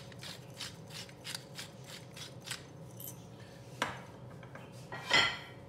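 Hand pepper mill grinding in quick strokes, about four a second, for the first two and a half seconds. A knock comes about four seconds in and a louder clatter of kitchenware about five seconds in.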